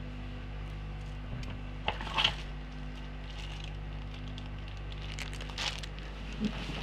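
Someone rummaging through parts, with brief rustles and clatters about two seconds in and again around five seconds, over a steady low hum.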